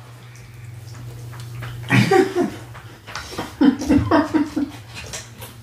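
People laughing: a low murmur first, then a short vocal burst about two seconds in and a run of quick chuckles a little later.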